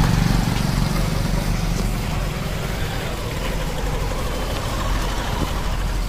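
Auto-rickshaw engine running with road noise while riding along the street, a steady low rumble.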